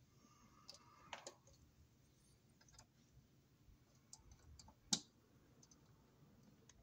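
Pliers and stiff insulated wires being handled at a metal electrical box: a few light clicks, with one sharper click about five seconds in.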